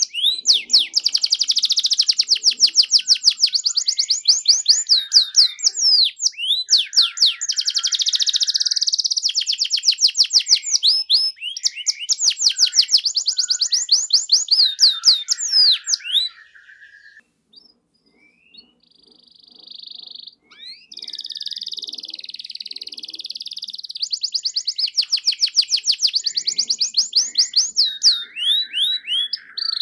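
Domestic canary singing a long, vigorous song of rapid rolling trills made of fast repeated high notes. About halfway through it breaks off for a few seconds, then resumes with buzzy phrases and more fast trills.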